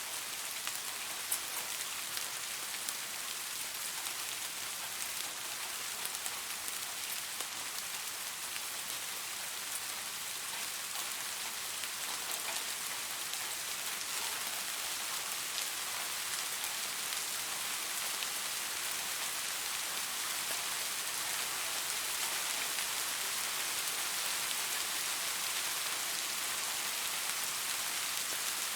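Steady rain falling, an even hiss with scattered drop ticks, growing slightly heavier in the second half.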